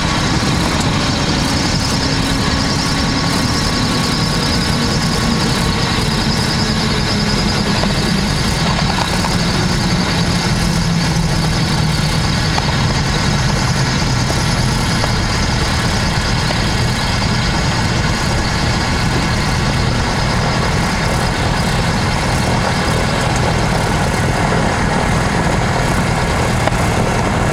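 Cessna 310's twin piston engines heard from inside the cabin, a steady drone at low power as the plane slows on the landing rollout and turns off onto the taxiway.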